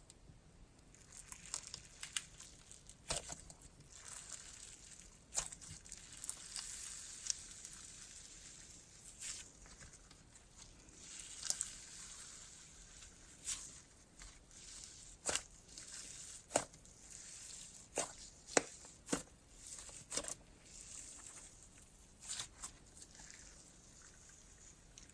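Thick icy-textured slime being stretched, pressed and poked by hand: a faint sizzly crackle with many sharp pops and clicks at irregular intervals.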